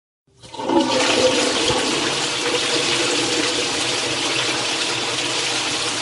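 Flush toilet being flushed: water rushes into the bowl, swelling up quickly about half a second in and then running on steadily.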